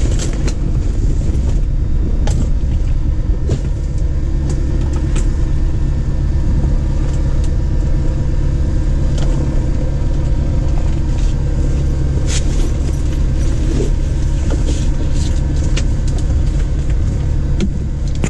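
Piper Warrior PA-28-161's four-cylinder Lycoming engine idling steadily, heard from inside the cockpit, with a few light clicks over it.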